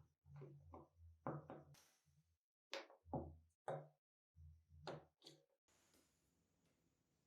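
A run of about a dozen knocks and clunks, some with a short bright ring, as parts and tools are handled on a workbench. They stop a little over five seconds in.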